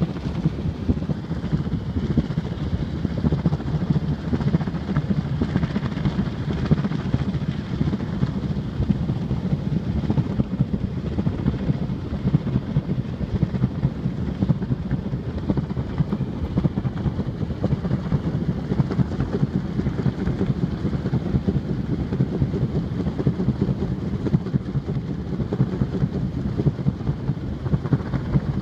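Wind buffeting the microphone: a steady low rumble that flutters rapidly in loudness.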